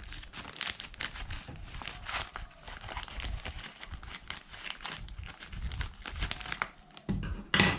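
White plastic mailer bag crinkling and rustling as it is handled and cut open along its edge with scissors, with a louder crinkle near the end.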